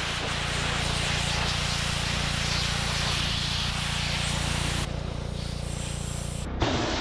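Pressure washer running: a steady motor hum under the hiss of the water jet, spraying old glue off a boat's floor. About five seconds in the hiss drops away, then comes back with a sharp click near the end.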